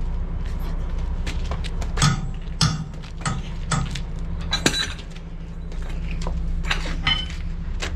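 Irregular sharp metal clinks and knocks of a long socket wheel brace and its steel bar working the wheel nuts of a truck's twin wheel, some with a brief metallic ring, over a steady low hum.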